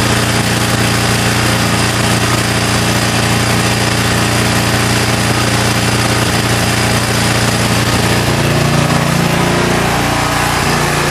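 Briggs & Stratton single-cylinder engine on a Toro walk-behind lawn mower, running steadily at speed. Its pitch wavers for a few seconds near the end.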